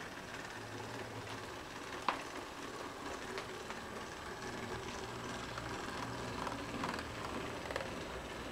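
Model train running along the layout track: steady running noise with a low hum from the locomotive, a sharp click about two seconds in, and a few fainter clicks later.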